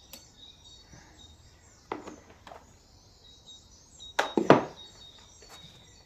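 A few short metallic clinks and knocks from hand tools working on a Land Rover Defender axle, the loudest a quick pair about four seconds in. Birds chirp faintly in the background.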